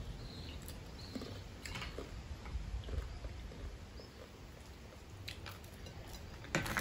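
Dry, hard Jamaican water crackers being chewed and broken, with faint scattered crunches and a louder crunch just before the end.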